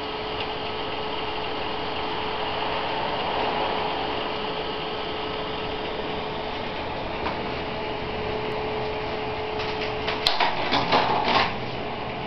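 Steady fan whir with a constant hum tone; about ten seconds in, the tone stops and a short run of clattering knocks follows.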